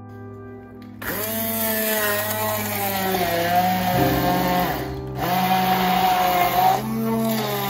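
Immersion blender pureeing chunks of roasted butternut squash in a plastic beaker. It starts about a second in, cuts out briefly around five seconds in, then runs again until near the end. The motor's pitch rises and falls as the blade works through the chunks.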